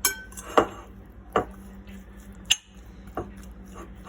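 Spoon clinking against a mixing bowl while stirring chicken salad: about five sharp knocks spaced irregularly, a few with a brief ring.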